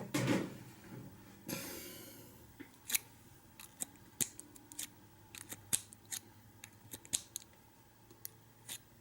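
Key blank being worked in the keyway of an American 600 padlock to impression its frozen pins: scattered sharp metallic clicks, with a couple of short scraping sounds in the first two or three seconds.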